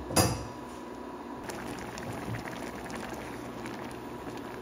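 Peach and date jam mixture simmering in a pan, with a steady fizz of many small bubbles popping from about a second and a half in. A single sharp knock sounds just after the start.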